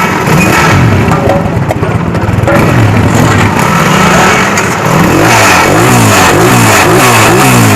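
125 cc motorcycle engine running and being revved over and over through its freshly washed silencer, the pitch rising and falling with each throttle blip and the blips coming quicker in the second half. The revving blows the loosened dirt and washing residue of petrol, engine oil and detergent out of the silencer.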